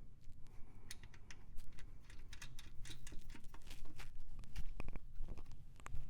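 Small metal hardware clicking and clinking as washers and nuts are handled and fitted onto the manifold studs: many light, irregular clicks, thickest in the second half. A steady low hum runs underneath.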